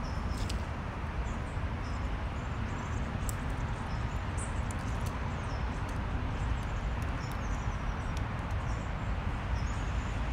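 Outdoor ambience: a steady low rumble with faint, scattered high chirps of birds.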